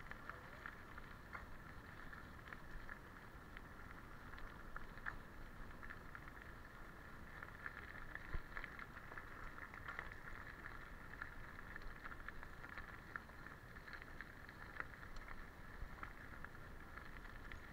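Rockrider mountain bike rolling along a gravel track: a steady hiss of tyres on loose gravel with scattered small clicks and rattles.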